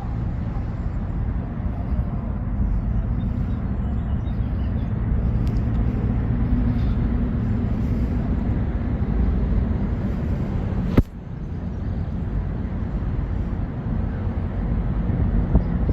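Steady low rumble of distant road traffic outdoors, with a single sharp click about eleven seconds in, after which the sound dips briefly.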